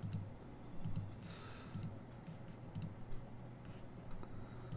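Computer mouse clicking: a few quick pairs of sharp clicks, about a second apart, over a low steady hum.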